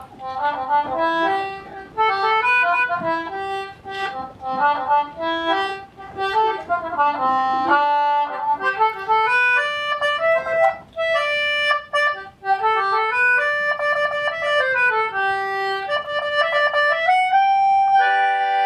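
Instrumental music: a quick melody of short notes on a reedy-sounding instrument, ending on a long held note and a chord.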